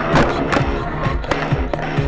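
Background music with a steady drum beat and held tones.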